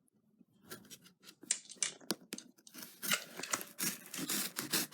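A knife cutting and tearing into a mailed package, with scattered clicks and scraping rasps that get busier and louder toward the end.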